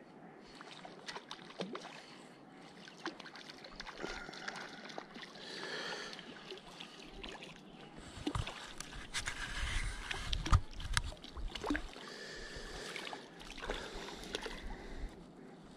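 Lake water sloshing and splashing, with scattered sharp clicks and splashes that grow busiest and loudest about eight to twelve seconds in.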